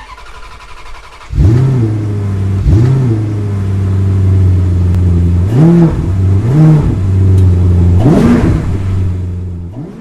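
A vehicle engine starts about a second in and idles steadily. It is revved in five short blips that rise and fall, then fades out at the end.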